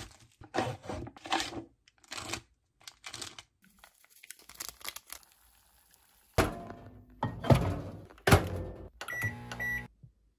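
A quick run of short handling sounds as a Shin Ramyun cup noodle is prepared: the paper cup and its packets are handled, with a few heavier knocks in the second half. Near the end come several short, high electronic beeps.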